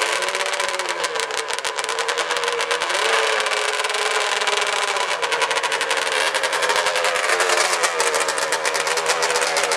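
Yamaha Banshee-engined drag quad's two-stroke twin revving hard and held at high revs while the rear slicks spin in a burnout, its pitch wavering and climbing a little twice.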